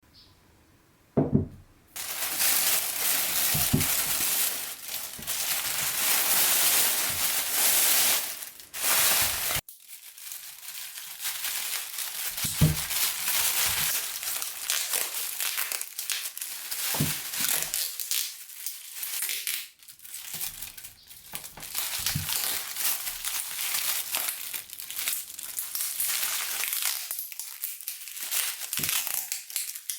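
Turning tool cutting driftwood and resin on a woodworking lathe: a dense, high-pitched scraping hiss with a few short low knocks. It cuts off abruptly about a third of the way in and resumes.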